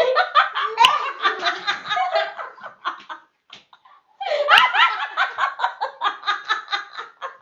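Two girls laughing hard in rapid, rhythmic fits, in two bouts with a short pause about three seconds in. A sharp smack comes about a second in and another about four and a half seconds in.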